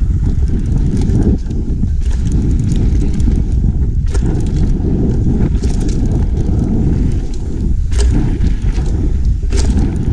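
Wind buffeting the camera's microphone over the rolling of mountain bike tyres on a dirt trail, with sharp rattles and clicks from the bike over bumps, the clearest about 4, 8 and 9.5 seconds in.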